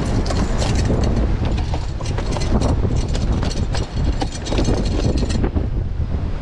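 Wind buffeting the microphone with a heavy rumble, cut through by many short crackles and knocks from the rope and gaff being handled while a mahi-mahi is hauled up the rock.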